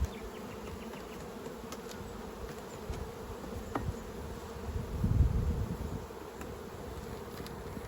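Honeybees flying around an opened beehive, a steady buzzing hum. A brief low rumble about five seconds in.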